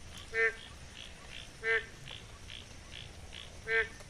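Frogs calling in rain-flooded ground. Three loud, short, nasal calls come a second or two apart over a fainter, quicker pulsing chorus.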